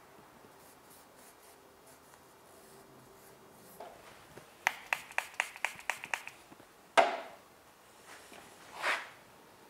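Hands handling small wooden trim pieces: a quick run of about eight light clicks, a sharp knock about seven seconds in, and a short rustling hiss near the end.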